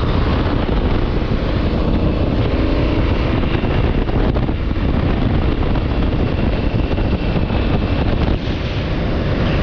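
Wind rushing over the microphone on a motorcycle at highway speed, with the bike's engine running steadily at a cruise underneath.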